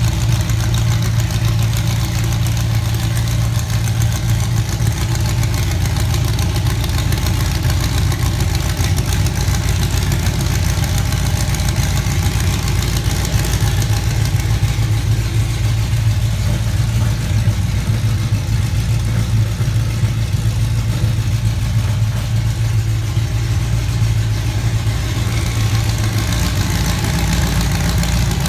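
Carbureted 2008 Chevy 6.0L LS V8 with a VCM 21 cam and 823 rectangle-port heads, running steadily at idle through short upright open headers.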